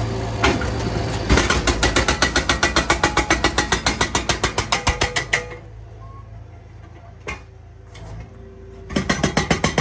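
Hydraulic breaker on a Bobcat skid-steer loader hammering a concrete slab, rapid rattling blows about ten a second over the loader's running engine. The blows stop a little past halfway, leaving the engine running, and start again near the end.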